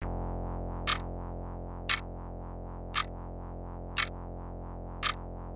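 Quartz wall clock ticking once a second, five sharp ticks, over a steady low synthesizer drone.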